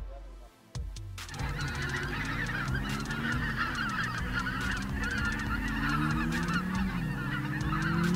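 A flock of geese honking continuously, starting about a second in, over a low steady hum that slowly rises in pitch near the end.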